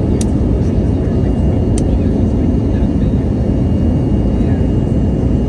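Steady airliner cabin noise during descent: a constant low rumble of engines and airflow through the fuselage, with a faint steady high whine. Two small clicks sound in the first two seconds.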